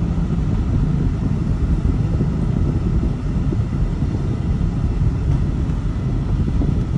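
Steady low road and engine rumble of a car driving at moderate speed, heard from inside the cabin.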